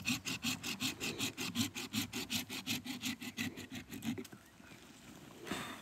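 Hand pruning saw cutting into the root of a tree stump in the soil, quick even back-and-forth strokes, about six a second, that stop about four seconds in; one short scrape near the end.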